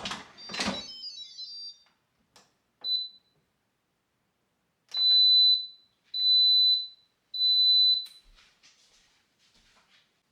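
An electronic appliance beeper sounds one short high beep, then three longer beeps of the same steady pitch, evenly spaced. It follows a brief clatter with a short high ringing at the start.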